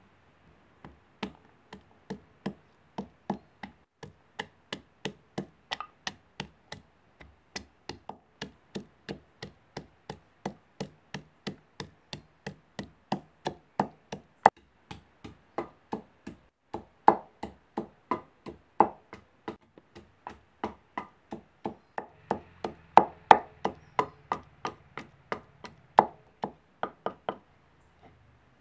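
Wooden pestle pounding garlic cloves and ginger in a mortar: steady strokes about two a second, some of them louder in the second half, crushing the cloves to a paste.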